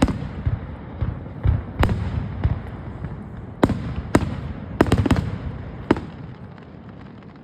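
Aerial fireworks bursting: about ten sharp bangs, several in quick succession around the middle, over a low rumbling echo that fades near the end.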